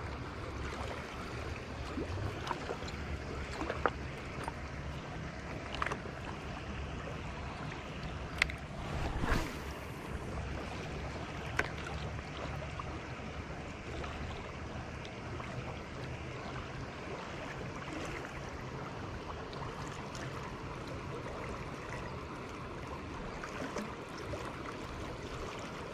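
Steady rush of fast river water flowing around the angler, with a low rumble underneath. A handful of sharp clicks from handling the spinning rod and reel stand out in the first half, with a brief louder swell about nine seconds in.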